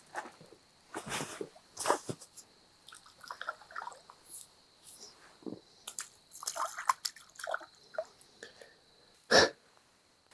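Irregular wet splashes, drips and squelches of a small crucian carp being landed and handled at the water's edge, with scattered clicks and one sharp knock near the end.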